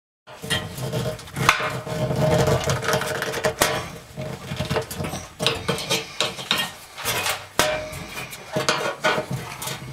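Screwdriver working stiff screws out of an oven's bake element mount: irregular metal scraping and sharp clicks inside the oven cavity.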